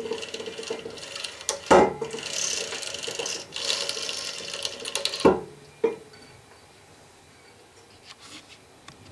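Metal rattling and clinking of a Delta drill press's counterweight chain running over its pulley as the table is moved, with two sharp clanks. It stops about five seconds in.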